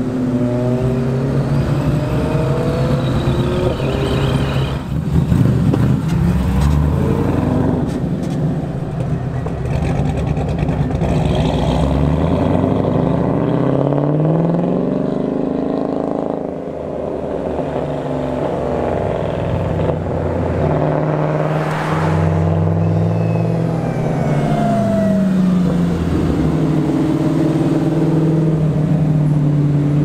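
Car engines accelerating and revving as they drive past, the engine pitch climbing and dropping again several times.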